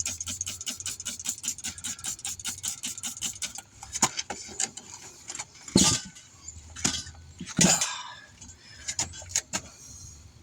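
An even rattle of clicks, about five a second, stops about three and a half seconds in. Scattered metallic clinks and knocks follow as tools and the wheel are handled during tire mounting, the loudest a little past the middle.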